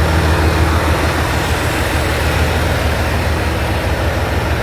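Semi-truck's diesel engine running steadily, a low, even hum with broad mechanical noise over it.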